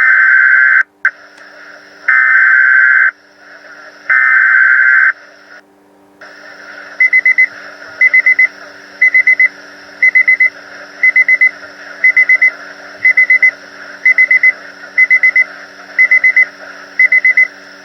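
Weather radio emergency alert signalling: three one-second bursts of warbling digital SAME header tones, each about a second apart. Then, after a short gap, rapid triple beeps repeat about once a second as the alert tone. A faint hum and hiss run under it all.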